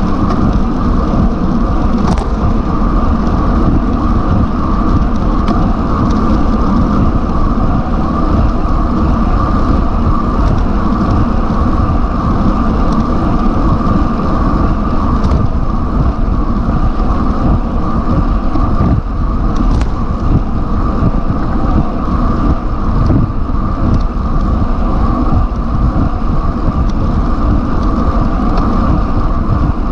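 Steady wind noise on a bike-mounted camera's microphone, mixed with road-bike tyres running on asphalt at high speed, with a few faint clicks.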